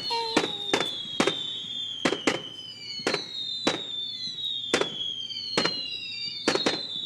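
Fireworks display: a rapid string of sharp bangs, about one or two a second, with several long whistles overlapping them, each sliding slowly down in pitch.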